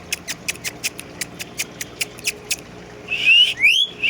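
Indian ringneck parakeet making rapid sharp clicks, about five a second, then giving two short rising squawks near the end.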